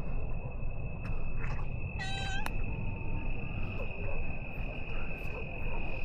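Crickets chirring in one steady, unbroken high tone. About two seconds in, a cat gives one short meow.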